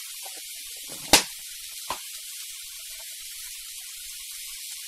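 Metal spoon knocking against a steel mixing bowl twice, a sharp knock about a second in and a lighter one just under a second later, over a steady hiss.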